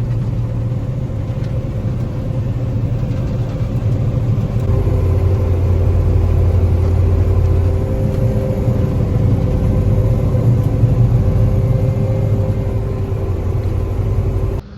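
Combine harvester running while harvesting milo: a steady, loud low rumble with a constant machine hum over it. It grows louder about five seconds in and cuts off abruptly near the end.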